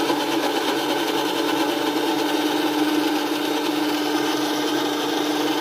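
Electric mixer grinder (mixie) with a stainless-steel jar running steadily, its motor humming at one constant pitch as it grinds cooked tomatoes, cashews and whole spices into a fine paste.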